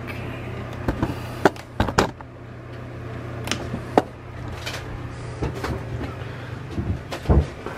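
Sharp clicks and knocks from switches and wooden cabin fittings being handled, a cluster of them in the first two seconds and a heavier low knock near the end, over a steady low hum.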